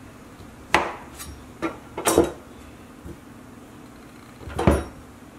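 A blade chopping down through firm, chilled shortbread dough and knocking on the board or counter beneath: a sharp knock about a second in, a couple of lighter taps, a louder double knock around two seconds in, and one more knock near the end.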